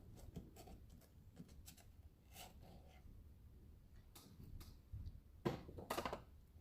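Quiet room with scattered faint clicks and taps, a few of them louder in the second half.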